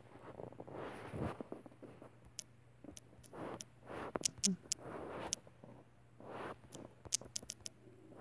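Light, irregular clicks of fingertip taps typing on a phone's on-screen keyboard, with a quick run of taps near the end and soft rustling between them.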